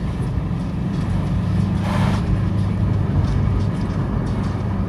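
Opel Vectra B's 1.7 TD Isuzu four-cylinder turbodiesel, running on straight vegetable oil, heard from inside the cabin while driving: a steady low drone with road noise. A brief hissing rush comes about two seconds in.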